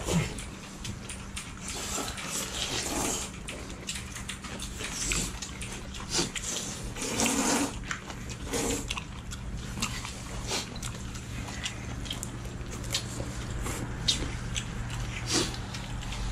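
Several people slurping and chewing jjajangmyeon noodles, with irregular wet slurps and small clicks of chopsticks and bowls over a steady low hum.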